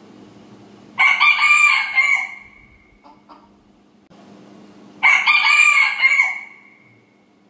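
A rooster crowing twice, about four seconds apart; each crow lasts about a second and a half and ends in a drawn-out note that fades away.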